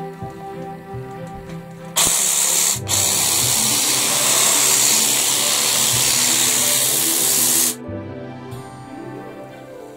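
Makita DUN500W cordless pole hedge trimmer test-run with its newly replaced blade: a loud, even motor-and-blade noise starting about two seconds in, with a momentary stop soon after it starts, then running steadily for about five seconds before cutting off suddenly. Background music plays underneath.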